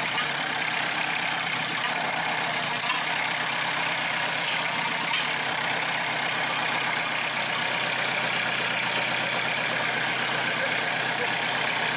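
Diesel engine idling steadily with its idle regulator and cable freshly adjusted, a fix meant to smooth out loud, rough running.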